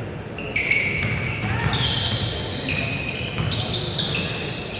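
Basketball game on an indoor court: a ball bouncing, many short high sneaker squeaks, and voices in the background.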